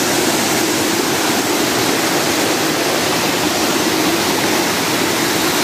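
Waterfall water spilling over rock ledges and splashing into a pool close to the microphone: a loud, steady rushing.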